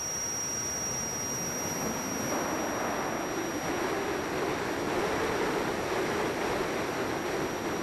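Radio-controlled model aircraft flying, a steady rushing noise with a wavering hum that comes in about two seconds in and grows slightly louder.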